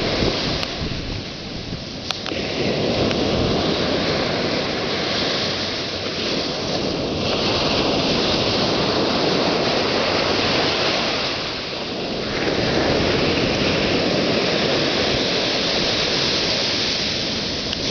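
Waves breaking and washing up a sandy beach: a continuous rush that swells and eases, dipping briefly twice, with wind buffeting the microphone.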